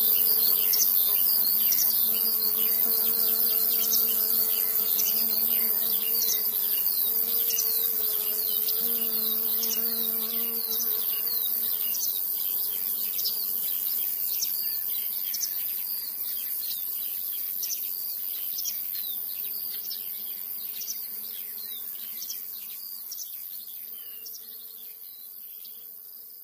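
Mammotion Luba robotic lawn mower running as it mows, its electric motors giving a steady buzzing whir with a wavering low hum. The sound fades away toward the end.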